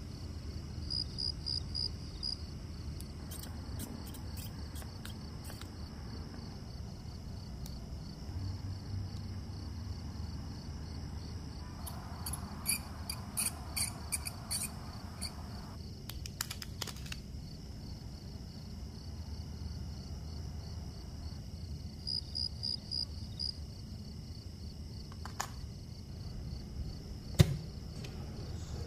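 Small sharp clicks and taps of tools and metal watch parts being handled. They come in a cluster midway and end in one louder click near the end. Underneath runs a steady low hum, and twice a short run of high, rapid chirping.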